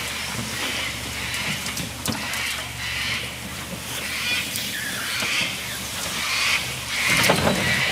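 Aluminium dinghy hull scraping and dragging over grass and dirt as a rope from a vehicle hauls it up a riverbank, in repeated rasping pulls. The vehicle's engine runs steadily underneath, and the dragging grows louder near the end.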